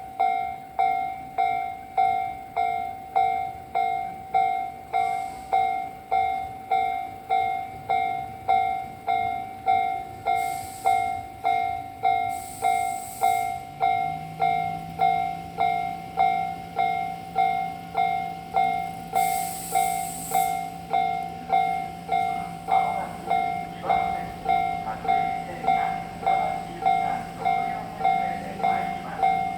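Japanese railway level-crossing warning bell ringing steadily, about one and a half dings a second. About halfway in, a low steady hum joins as a train comes through the station.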